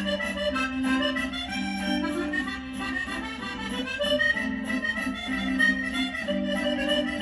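Background accordion music: a melody moving over held lower notes.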